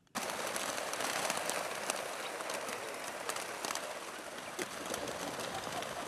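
Many chukar partridges fluttering and taking off together: a dense, crackly rush of wingbeats full of small clicks that starts abruptly.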